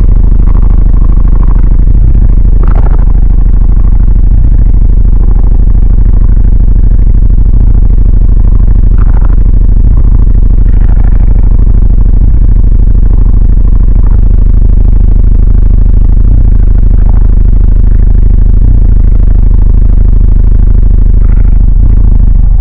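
High-SPL car audio subwoofer system playing a sustained low bass tone at very loud level, with the vehicle's panels and trim rattling.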